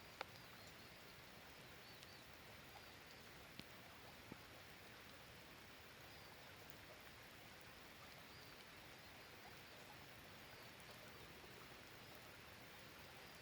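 Light steady rain, a faint even hiss, with a few sharp drips falling about a quarter second in and again between three and four and a half seconds in. Faint high chirps recur through it.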